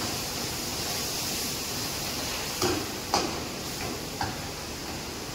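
Metal ladle clanking and scraping against a pan on a gas stove, three short clanks around the middle, over a steady hiss.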